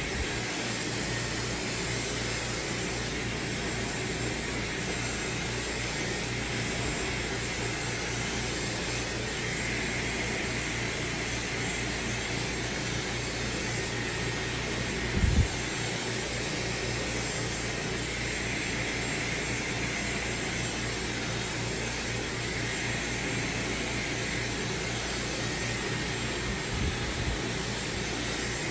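Dyson Supersonic hair dryer running steadily, a constant rush of blown air as it is worked through the hair. A dull knock about halfway and a fainter one near the end.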